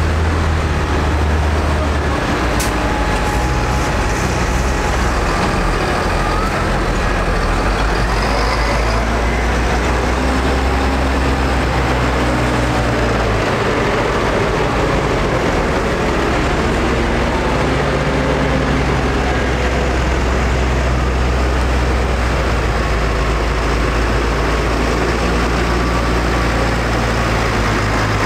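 Diesel farm tractors driving slowly past one after another, a steady low engine drone whose note changes as each tractor gives way to the next.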